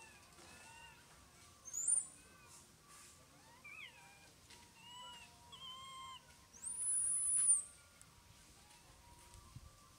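Young macaques giving short, mewing coo calls that bend up and down in pitch. Two thin, high whistling squeals cut through, a short one about two seconds in and a longer, louder one about a second long near seven seconds.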